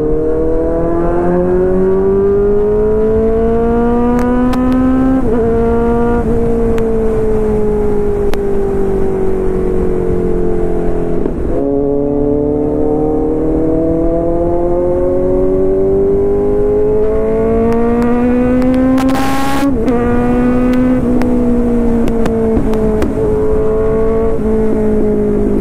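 Motorcycle engine under way at highway speed, its note climbing as it pulls, dropping sharply about 5 seconds in and again about 11 seconds in, climbing again until about 20 seconds in, then easing off near the end.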